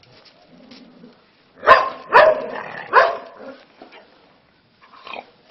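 A dog barking three times in quick succession, starting about a second and a half in, then once more, quieter, near the end.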